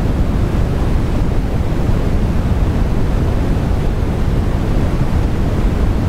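Steady, loud rushing noise with a deep rumble underneath. It stays unchanged throughout, with no distinct clicks or knocks.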